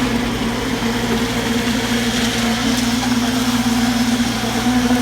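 Concrete-pouring machinery running with a steady engine drone and a constant hum, holding even throughout.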